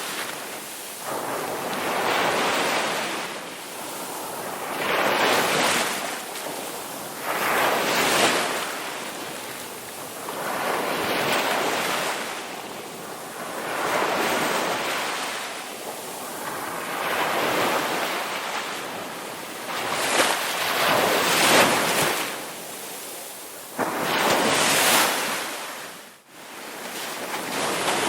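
Ocean surf on a beach: waves breaking and washing in one after another, each swelling and fading away in a noisy rush about every three seconds.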